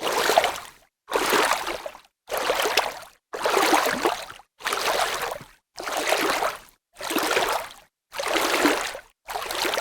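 Water splashing: a series of nine separate splashes, about one a second, each fading out into a short dead-silent gap.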